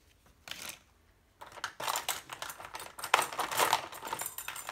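Small hard plastic and metal tool-kit pieces clicking and clattering as they are handled. One short rattle comes about half a second in, then a run of clicks from about a second and a half in.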